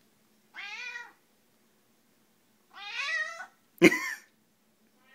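Domestic cat meowing three times: a short meow about a second in, a longer rising one about three seconds in, and a loudest, sharp one about four seconds in that begins with a knock. The meows sound clear, her normal voice coming back after the raspiness she has on waking from a nap.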